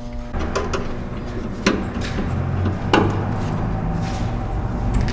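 A few sharp knocks and clicks over a low rumble that starts just after the beginning, the loudest knock about three seconds in.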